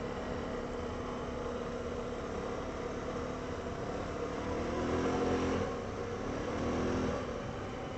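Honda ATV engine running steadily while riding, its note rising and getting louder twice, about halfway through and again near the end, as the throttle is opened.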